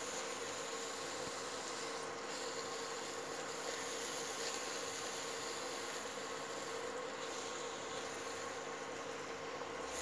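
Carrot halwa frying in ghee in a pan while being roasted, a steady low sizzle with a faint steady hum underneath.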